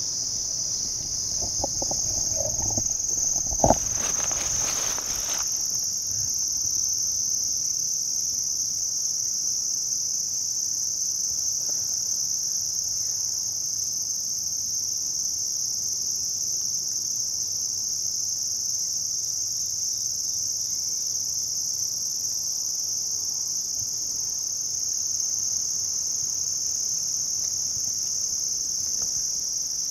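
Steady, high-pitched chorus of crickets and other insects. A sharp knock about four seconds in, with a brief rustle around it.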